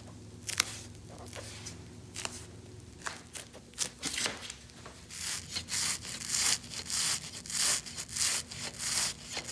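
Repeated rubbing strokes on the seat back's surface as contact cement is worked on: a few scattered strokes at first, then regular strokes about two a second from about halfway through.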